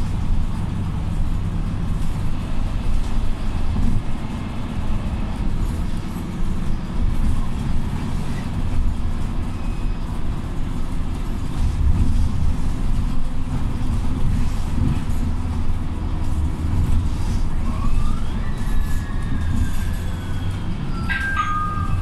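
Steady low rumble of a Mercedes-Benz O628 II LF Conecto city bus driving, heard from inside the passenger cabin. Near the end a high whine slides slowly down in pitch.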